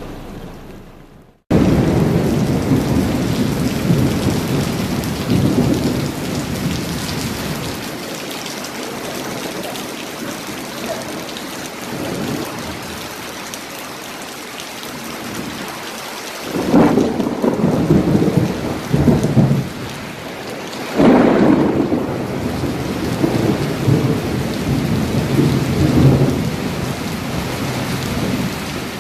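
Steady heavy rain, with thunder rumbling loudly twice in the second half; the second peal starts suddenly. The sound cuts out for a moment near the start, then the rain comes back in.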